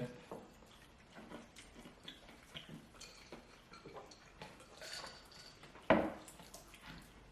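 Eating at a table: small scattered clicks and rustles of hands peeling and handling fried chicken, with one sharp, louder knock about six seconds in.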